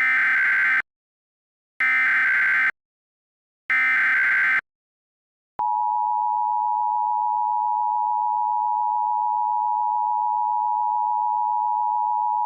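Three Emergency Alert System SAME header data bursts, each just under a second long and about two seconds apart. About five and a half seconds in, the steady two-tone EAS attention signal (853 and 960 Hz) follows, made by a software EAS encoder.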